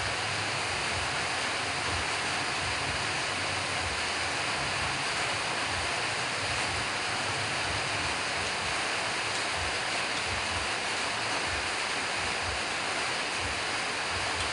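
Steady, even rushing noise with an irregular low rumble underneath.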